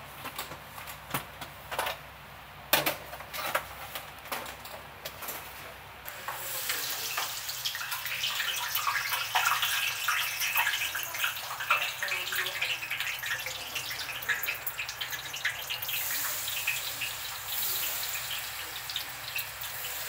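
A metal spoon clicking and scraping against a stainless steel bowl while tempura batter is mixed. About six seconds in, a louder, steady crackling hiss sets in and carries on.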